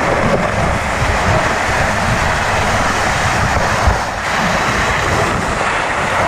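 Loud, steady wind buffeting the microphone, with a low rumble underneath.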